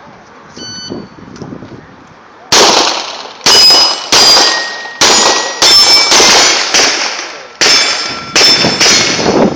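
A short electronic shot-timer beep, then about ten shots from a Glock 17 9mm pistol over some seven seconds. Steel targets ring after the hits.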